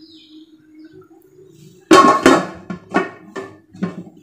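Dishes clattering, a plate against a steel bowl: a loud knock about two seconds in, then several smaller knocks and rattles.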